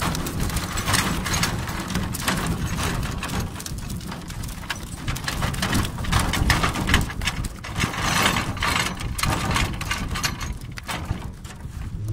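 Steady wind rumble on the microphone, with repeated knocks and splashing as fish are tipped from a trap into a metal boat and flap against the hull, loudest from about six to nine seconds in.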